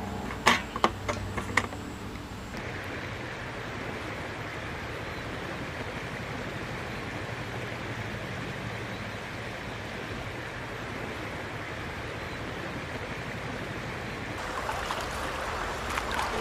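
Steady rushing of a mountain stream. A few sharp knocks come in the first two seconds, and the water sound grows brighter near the end.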